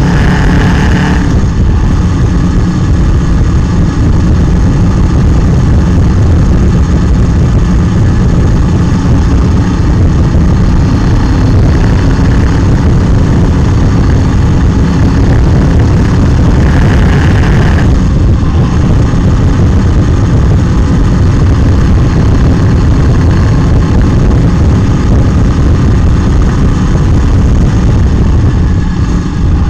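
Heavy wind rumble on the microphone of a motorcycle-mounted camera while riding, with the motorcycle's engine running beneath it.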